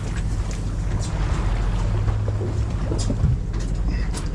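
A boat's engine running with a steady low drone, wind buffeting the microphone, and a few sharp clicks.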